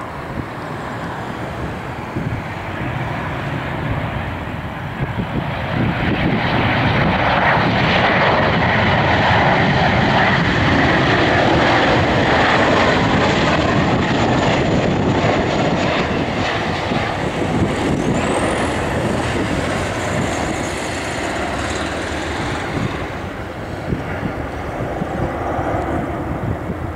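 Boeing 737-800 airliner's CFM56 turbofan engines on final approach. The engine noise grows steadily louder as the jet passes low and close, then eases off as it nears the runway.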